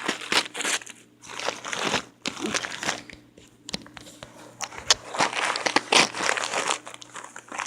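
Plastic packaging wrap crinkling and crackling as it is handled and pulled open, in irregular bursts with a few sharp clicks.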